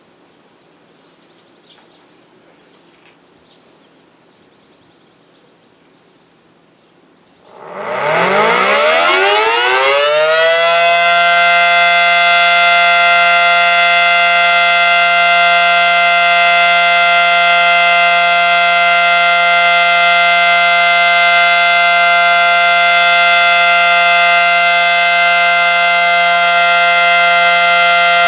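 Federal Signal Model 5T electromechanical outdoor warning siren starting up about seven seconds in. Its pitch climbs over about three seconds and settles into a loud, steady full-alert tone.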